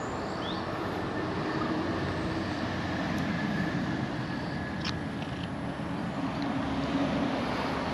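Steady outdoor background noise with a faint low hum running through it, a few short high chirps, and a single sharp click about five seconds in.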